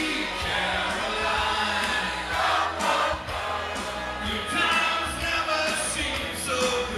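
Live pop song performance: a man singing into a microphone over backing music, with group voices and crowd noise from the audience mixed in.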